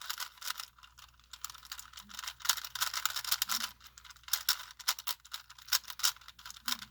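Plastic Rubik's Cube being turned fast by hand: a quick, irregular run of clicks and rattles as its layers snap round, during the solve of the third layer.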